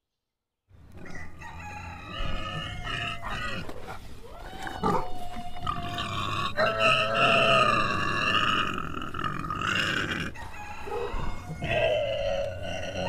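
Animal calls and grunts starting about a second in, several pitched, wavering calls over rougher grunting, loudest in the second half.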